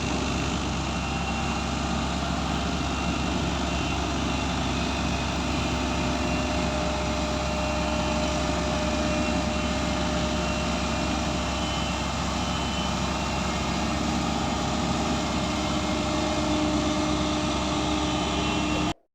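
Diesel engine of heavy earthmoving machinery running steadily at an even speed, cutting off suddenly at the very end.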